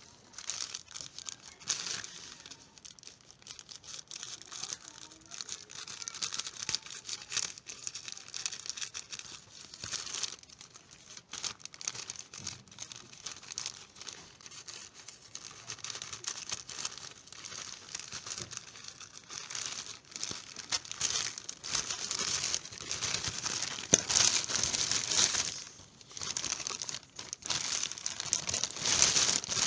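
Thin black plastic courier pouch crinkling and rustling as hands handle it and cut it open with scissors. The crinkling grows louder in the last several seconds as the box is pulled out through the plastic.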